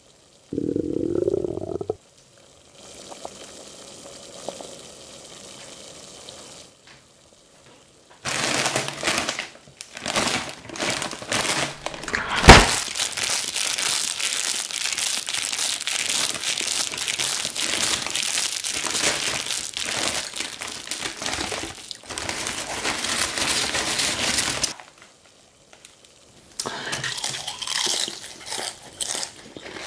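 A foil-lined Lay's potato chip bag crinkling loudly as hands handle it and pull it open, with one sharp pop a few seconds after the crinkling begins. The crinkling stops, then starts again briefly near the end.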